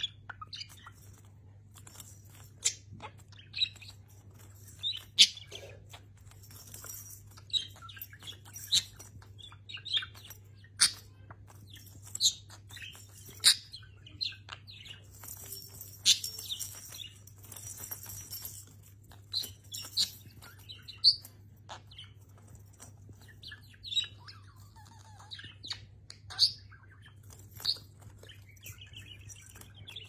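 Budgerigar giving short chirps at irregular intervals, mixed with sharp taps and clicks as it pecks and pushes a wooden toy stand with a wheel of plastic balls.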